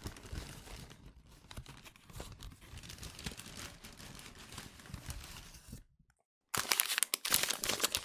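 Takeaway food packaging being handled and opened, crinkling and tearing. It is fainter for the first six seconds, then there is a brief silence, then much louder, dense crinkling over the last second and a half.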